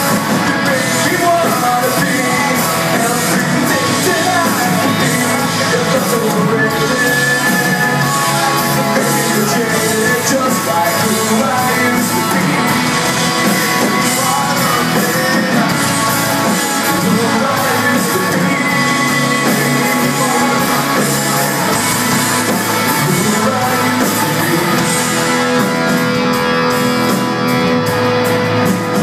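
Live rock band playing, with singing over guitars and drums, loud and unbroken.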